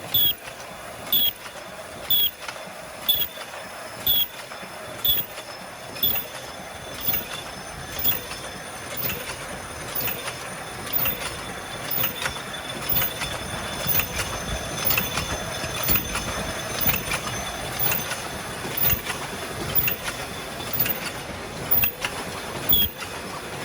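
Paper bowl making machine running, a sharp mechanical stroke repeating about once a second over a steady clatter and hiss.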